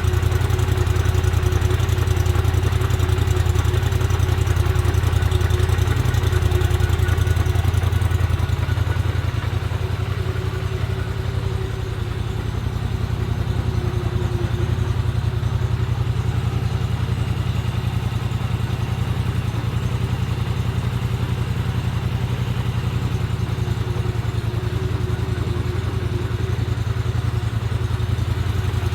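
A Polaris Sportsman ATV engine running steadily at low speed, about idle, with an even firing pulse. Its level dips slightly about ten seconds in.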